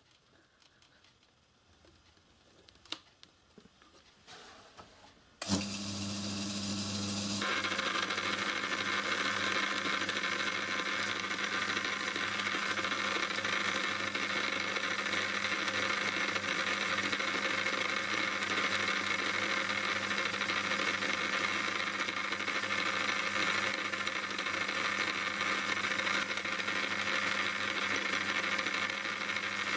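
Small watchmaker's lathe and its electric drive motor switched on about five seconds in, then running steadily under power: a low mains hum with a higher whir that grows stronger a couple of seconds after start-up. A few faint clicks and knocks come before it starts.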